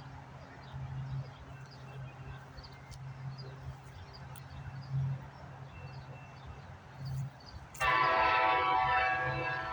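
Amtrak ALC-42 Charger diesel locomotive approaching with a steady low engine hum. Near the end its horn sounds a loud, sustained multi-note chord. Faint bird chirps are heard in the background.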